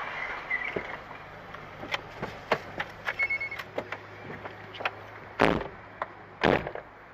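A steady low hum with scattered light clicks and knocks, a short high beep about three seconds in, and two louder dull bumps about a second apart near the end.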